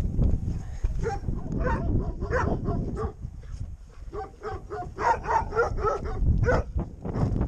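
A dog yapping in short barks, scattered at first and then in a quick run of yaps from about five seconds in, over wind rumbling on the microphone.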